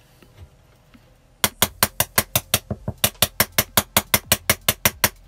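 Rapid tapping on the bottom of an upturned metal cake pan, about six sharp strikes a second in two runs with a short pause between, knocking a baked loaf loose so it drops out of the pan.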